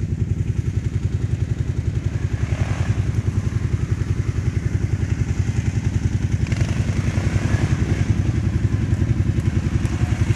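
ATV engine idling steadily with an even, rapid exhaust pulse.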